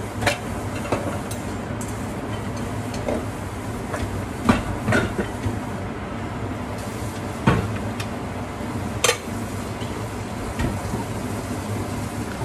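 A range hood fan runs steadily while dishes are handled: about half a dozen sharp knocks and clinks of a ceramic bowl and cookware being picked up and set down.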